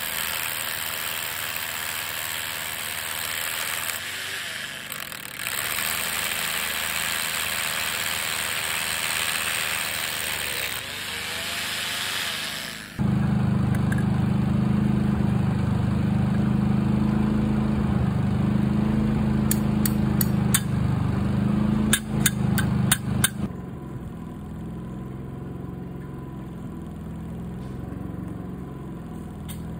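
Corded electric drill with a paddle mixer running steadily as it stirs concrete in a cardboard form tube. About thirteen seconds in it gives way to the louder steady hum of an engine, most likely the portable generator on site. A quick cluster of sharp knocks comes near the middle, and the hum eases a little soon after.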